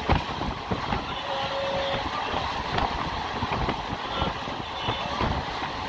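Passenger train running at speed, heard from on board: a steady rumble of wheels on rail, with irregular clicks and knocks from the carriage and track.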